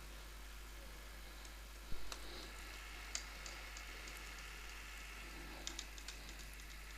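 A pause in the recitation: faint steady room hum with a handful of scattered small clicks and knocks, the sharpest about two seconds in and a little cluster near the end.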